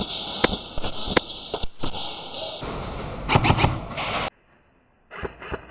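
Scattered sharp clicks and knocks over rustling movement noise, with a louder cluster of knocks a few seconds in, then a sudden near-silent gap and a few short bursts near the end.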